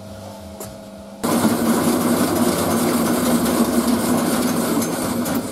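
A workshop power tool's motor running loudly and steadily, starting abruptly about a second in and stopping near the end.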